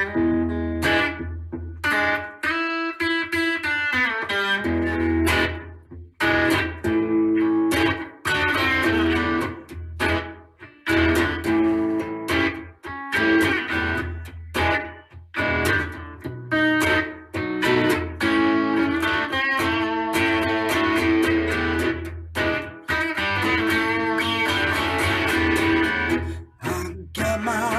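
Guitar playing an instrumental passage of picked notes and chords in phrases, with brief breaks between them.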